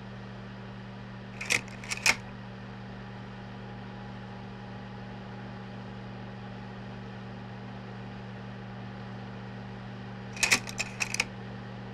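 Slide projector running with a steady low hum, its slide-change mechanism clicking and clacking twice: a short cluster of clicks near the start and another near the end.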